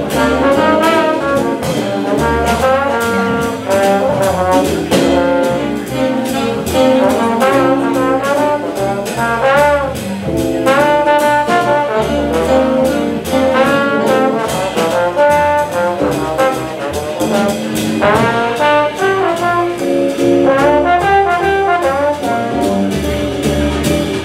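Big-band jazz played live: brass and saxophone sections over piano, bass and drums, with the drums keeping a steady beat.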